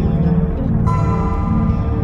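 Instrumental ambient soundtrack music: a low, steady drone with a bright ringing note that enters sharply about a second in.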